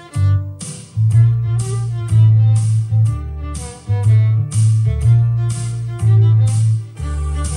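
Violin playing a bowed pop melody over a backing track with a steady bass line and a regular beat.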